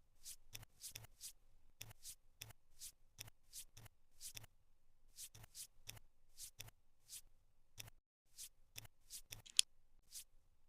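Jigsaw puzzle pieces being handled and pressed into place on a table: a string of light, crisp clicks and taps, irregularly spaced at about two a second.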